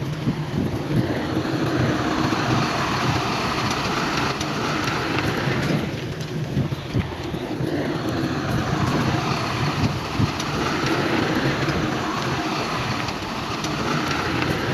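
Heavy diesel earthmoving machinery (bulldozer and dump trucks) running steadily, with a sound that swells and eases every few seconds.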